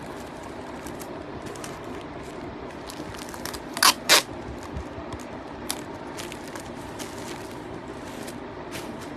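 Handling noise against a steady background hum: scattered faint clicks and crackles, with two loud sharp clicks close together about four seconds in.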